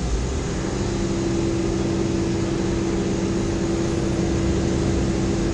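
Airbus A380 jet engines running at taxi power, a steady rumble; a steady low hum sets in about half a second in and holds.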